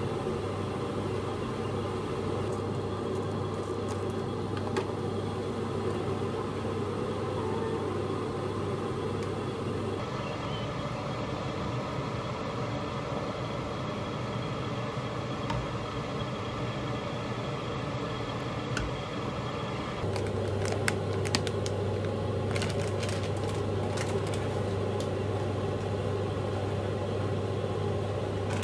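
Steady low mechanical hum with a constant background rush, changing abruptly twice, about ten and twenty seconds in, with a few faint clicks.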